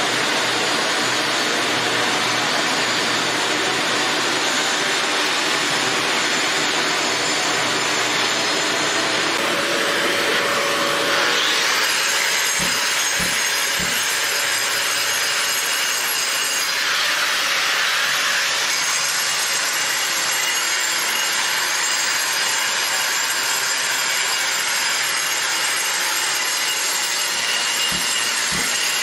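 Shrouded angle grinder with a dust-extraction vacuum hose grinding cured Bondo filler flush with a concrete floor: a steady motor whine over a rasping hiss. The sound shifts about ten seconds in with a rising whine, and a few brief low knocks come near the middle and near the end.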